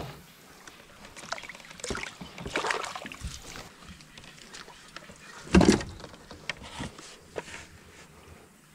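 Scattered knocks, clicks and rustles of fishing gear (landing net, fish, measuring board) being handled on a plastic kayak, with one louder hollow thump a little past halfway.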